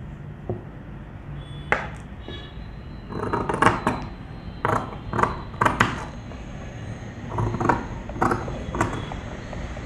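Tailor's scissors cutting through folded saree fabric: a run of irregular crisp snips, closest together about three to six seconds in.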